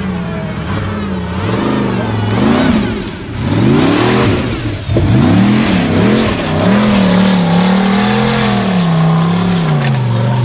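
Formula Offroad buggy's engine revving hard, rising and falling again and again under full throttle as the buggy spins its tyres and climbs, then held at high revs with a slow waver near the end.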